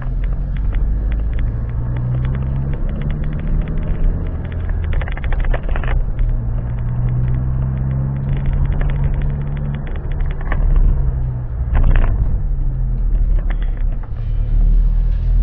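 Vehicle on the move: a steady low engine and road rumble, with brief rattles about five and twelve seconds in.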